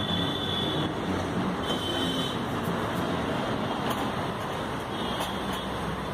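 Steady road traffic noise: a continuous mix of passing vehicles.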